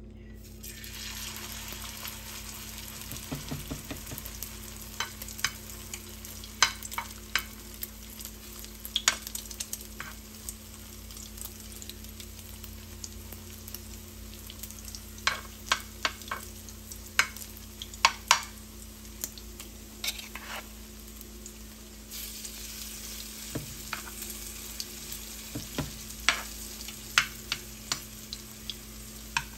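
Broccoli, egg and cheese patty mixture sizzling in hot oil in a nonstick frying pan, starting about a second in and growing louder about two-thirds of the way through. A metal spoon clicks and scrapes against the pan now and then as the patties are shaped.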